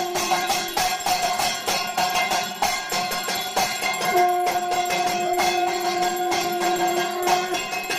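Indian devotional music with a steady percussion beat and jingling bells or tambourine. A long held note runs through the second half.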